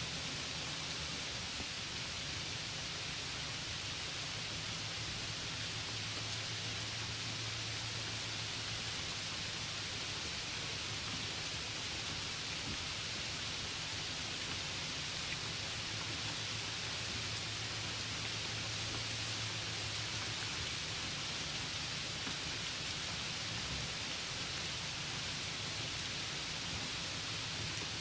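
Steady, even hiss with a faint low hum underneath, unchanging throughout.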